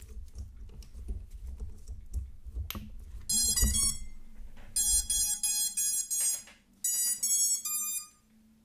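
FPV miniquad's brushless motors sounding the ESC startup tones as the battery is connected: three runs of short stepped beeps, starting a few seconds in, after some rustling handling noise.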